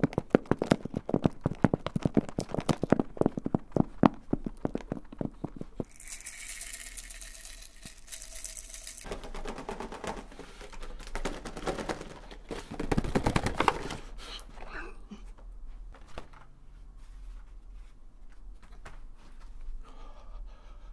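Rapid fingertip and fingernail tapping on a leather-look zippered case for the first six seconds. It is followed by several seconds of scratchy, crinkly rustling from objects being handled, and quieter scattered handling sounds near the end.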